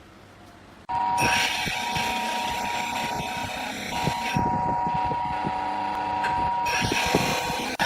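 Wood lathe running with a turning tool cutting into the spinning wood: a steady whine with rapid uneven knocks and scraping. It starts abruptly about a second in.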